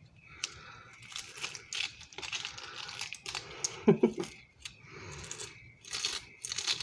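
Plastic packaging crinkling and rustling in irregular bursts as items are handled, with a brief vocal sound about four seconds in.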